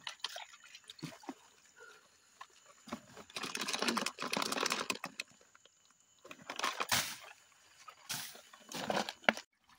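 Rustling and scraping handling noises from a plastic bottle holding live crabs, in several bursts, the longest lasting about two seconds in the middle.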